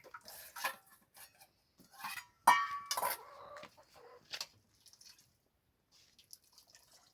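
Chicken clucking, with one loud squawk about two and a half seconds in, among scattered small knocks.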